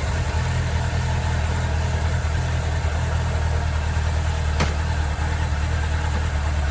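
Suzuki RF600R's inline-four engine idling steadily through its refitted exhaust silencer, with a single click about four and a half seconds in.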